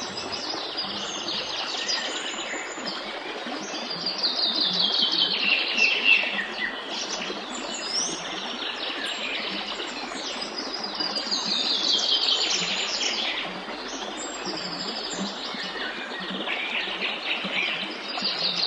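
Songbirds singing over the steady rush of a stream. One bird repeats a rapid trilled song that falls in pitch, about every seven seconds, with other chirps in between.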